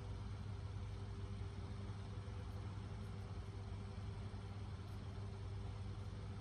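Steady low machine hum with a faint higher tone held above it.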